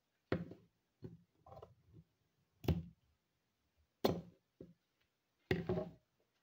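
A series of sharp knocks and clicks, six or so at uneven intervals, the last a short rattling cluster.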